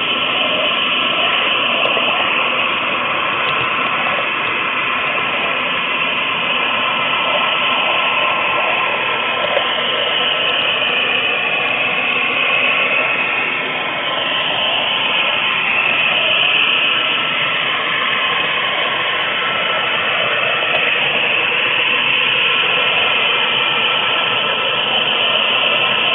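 HO scale model train running along the track, heard from close up on one of its cars: a steady mechanical rattle and whir of small metal wheels on the rails and the gear drive, with a faint whine that shifts in pitch now and then.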